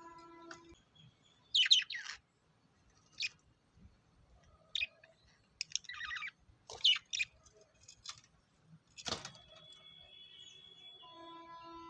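Lovebirds chirping: short, sharp high chirps one after another with gaps between, the loudest about one and a half seconds in.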